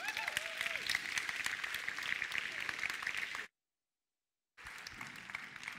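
Audience applauding. The clapping cuts out completely for about a second, a little past the middle, then comes back fainter.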